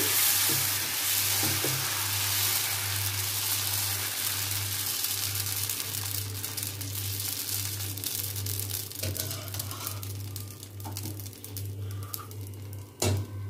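Dosa batter sizzling on a hot tawa as it is spread in circles with a steel ladle. The hiss is strongest at first and dies down as the batter sets, leaving small crackles, with a sharp tap near the end.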